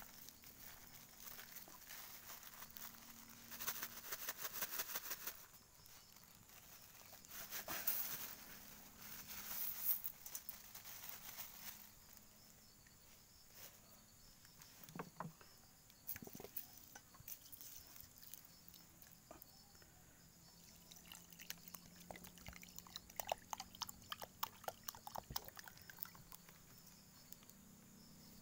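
Dry rice poured into a steel pot of water, a pattering hiss heard twice in the first ten seconds, followed by scattered small crackles and pops from the wood fire.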